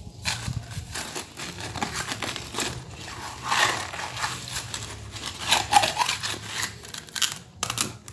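Mason's trowel working wet concrete in a slab form: irregular gritty scraping and crunching as the mix is prodded to lift the reinforcing bar up into the middle of the slab, loudest around the middle.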